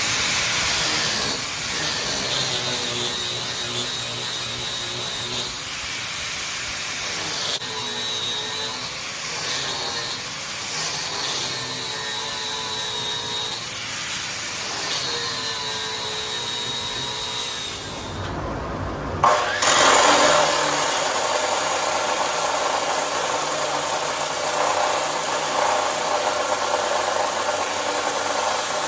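Power tool cutting through the steel of an old lawnmower-deck pulley bracket, its motor whine wavering as it bites. It stops briefly about two-thirds of the way in, then starts again.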